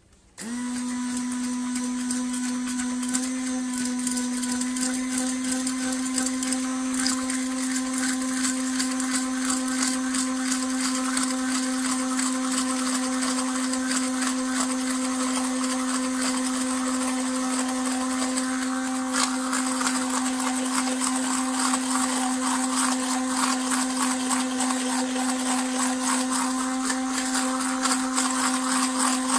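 Selecline stick blender running steadily, whipping a coconut-oil body balm mixture in a plastic bowl. The motor switches on about half a second in and holds one steady pitch, getting noisier about two-thirds of the way through.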